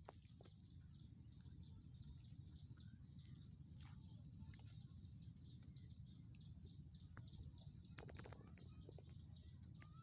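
Near silence: faint outdoor ambience, a steady low rumble with a thin steady high hiss and a few small ticks.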